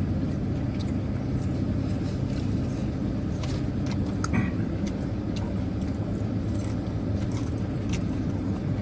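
Car idling with a steady low hum, with small clicks and rustles of someone eating over it.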